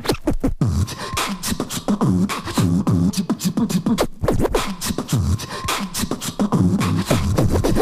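Background music with a fast, busy beat: dense rapid percussive hits over short repeating pitched figures, with a vocal-percussion character.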